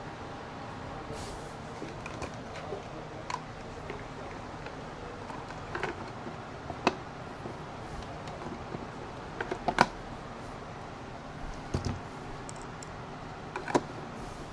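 Scattered clicks and knocks of the plastic parts of an Oster Oliq-610 blender and tools being handled during reassembly, with the sharpest knock about ten seconds in, over a steady background hum.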